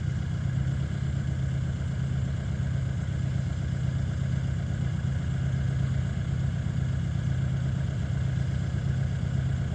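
Land Rover Discovery 300Tdi's four-cylinder turbodiesel idling steadily.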